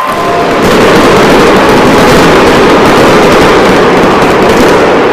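Monster truck engine running hard at full throttle, very loud, swelling about a second in and easing slightly near the end.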